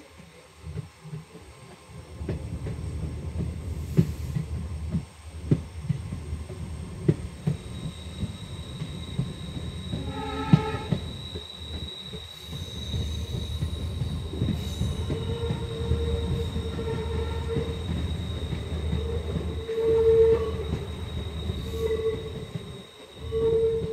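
Express train running on jointed track, heard from an open coach window: a steady low rumble with knocks from the wheels over rail joints and a thin, steady squeal of wheel flanges against the rail. About ten seconds in, the diesel locomotive's horn sounds briefly.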